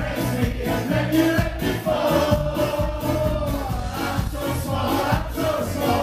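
Ska band playing live, several vocalists singing together over a steady drum beat.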